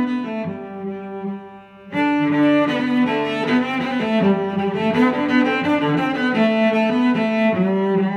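Background music of held, sustained notes. It thins out and drops in level about a second in, then comes back full just before two seconds in.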